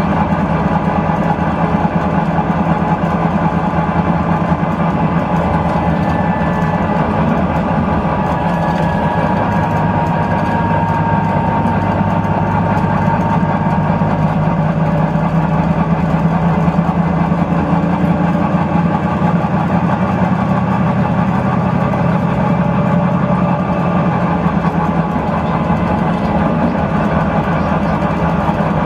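Volvo B9TL double-decker bus's 9.4-litre straight-six diesel running steadily under way, heard from inside the upper-deck saloon.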